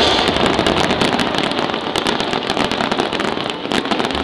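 Aerial fireworks bursting overhead: a dense run of many sharp cracks and pops in quick succession, getting a little quieter toward the end.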